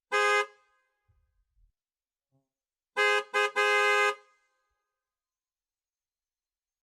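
Car horn honking: one short honk, then about two and a half seconds later two quick toots followed by a slightly longer honk. The horn sounds two steady pitches together.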